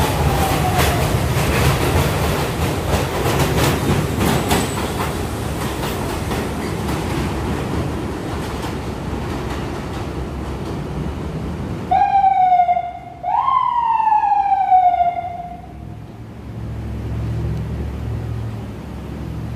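Steel-wheeled New York City subway train running along an elevated station platform, with a rumble and rapid wheel clicks that slowly fade. About twelve seconds in, a train horn sounds two loud blasts: a short one, then a longer one that starts higher and slides down in pitch.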